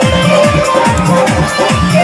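Loud dance music played through large loudspeaker cabinets, with a steady, heavy bass beat.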